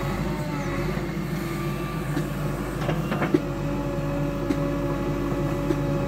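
JCB backhoe loader's diesel engine running steadily as the backhoe arm digs, with a few short knocks around the middle, the sharpest a little past halfway.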